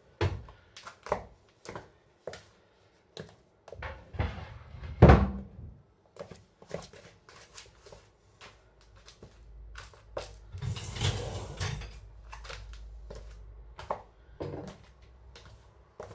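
Dishes and cutlery being taken out of a dishwasher and put away: a string of short knocks and clinks, with a loud knock about five seconds in and a longer rattling stretch around eleven seconds.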